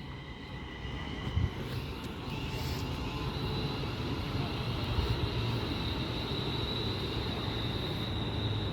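Passenger train running through the station, a steady rumble with a high electric whine that comes in about three seconds in and grows slowly louder as it approaches.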